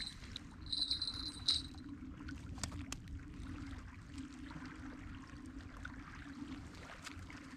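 Small waves lapping at the lake shore, with a brief high thin whine in the first second and a half and a few sharp clicks.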